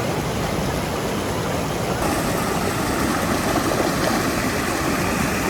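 Steady rushing of a waterfall and stream. The sound shifts in character about two seconds in.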